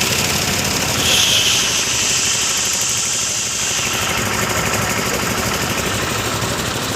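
Sonalika 745 III tractor's three-cylinder diesel engine running steadily on a set throttle, with a knocking diesel beat. A hiss rises over it about a second in and fades after a few seconds.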